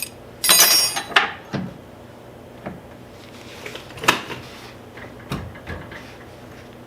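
Metal parts and hand tools clinking and clattering while a nylon lock nut is fitted to a table-saw fence's lock assembly: a loud metallic jangle about half a second in, then a few separate sharp clicks and knocks.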